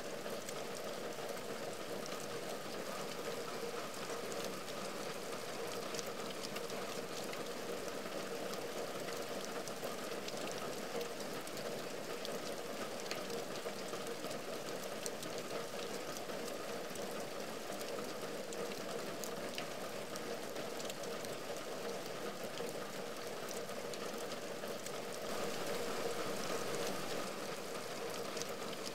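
Steady heavy rain falling on a window and its ledge, a dense patter of individual drops over a continuous hiss. It swells slightly near the end.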